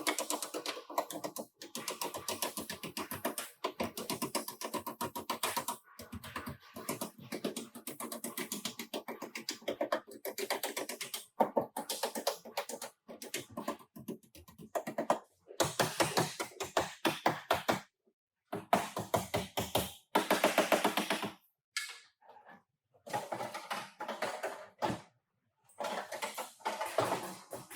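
Rapid, even tapping or clicking, many strokes a second, in stretches of a few seconds that stop abruptly and start again.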